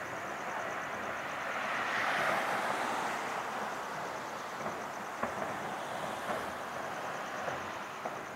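Distant fireworks: a crackling hiss that swells about two seconds in as a glittering burst goes off, then several sharp pops.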